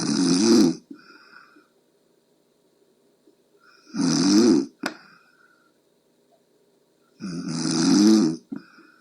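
A sleeping person snoring: three loud snores, one about every four seconds, each lasting about a second, with a wavering low pitch. A short click follows the second snore.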